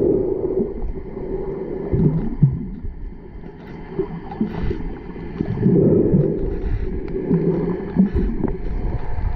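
Muffled underwater sound heard through a submerged camera: low rushing and gurgling of moving water that swells and fades every couple of seconds, with faint scattered clicks.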